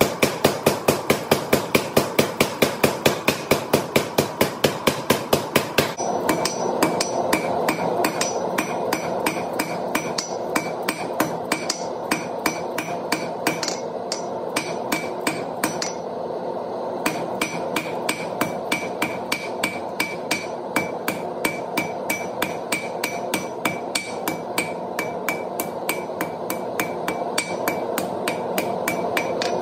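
A power hammer pounds a 5/8-inch steel round bar in rapid, evenly spaced blows. About six seconds in, this gives way to a hand hammer striking red-hot steel on an anvil in quick, steady blows, with the anvil ringing after each one.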